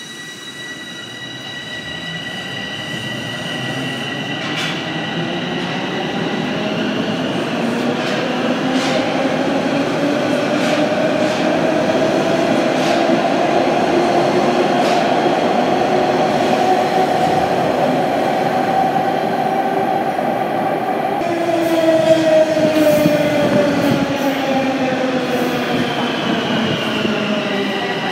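Bombardier Toronto Rocket subway train pulling out of the station. The traction motors' whine climbs steadily in pitch and grows louder as the train accelerates past, over wheel and rail rumble, then slides down in pitch over the last several seconds.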